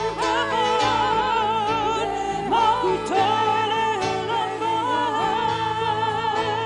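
Live worship band music: several singers holding long notes with a wavering vibrato over keyboard and a steady low bass note.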